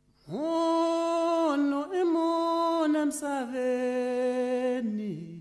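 A single voice chanting in long held notes that step down in pitch, fading out near the end.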